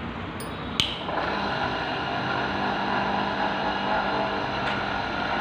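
Bench-mounted electric motor with a drill chuck on its shaft switched on with a click about a second in, then running with a steady hum while it spins a Bosch common-rail injector control valve being lapped in green grinding paste to reseat it, a cure for heavy injector back leakage.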